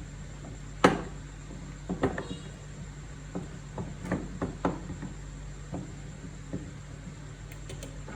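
A sharp knock about a second in, then a string of lighter clicks and taps: small hard objects being handled and set down.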